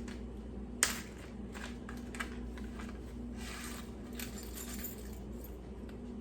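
Small pistol-build parts and their packaging being handled, with one sharp click about a second in, a few lighter clicks and two short rustles, over a steady electrical hum.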